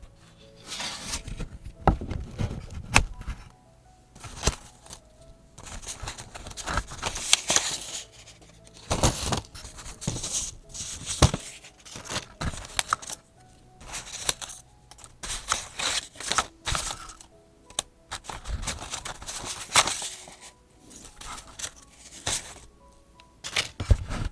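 Paper and journaling materials being handled close up: irregular bursts of rustling with occasional sharp taps and clicks, separated by brief quiet gaps.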